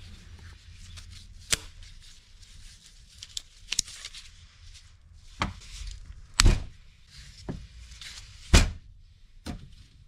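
Scattered light clicks and knocks of a small steel pick and the steel piston of a backhoe hydraulic cylinder as the old seals are pried off, with two louder knocks in the second half.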